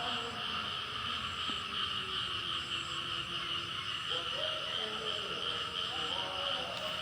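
A steady chorus of frogs and insects calling at dawn, a continuous pulsing trill, with faint pitched calls rising and falling underneath.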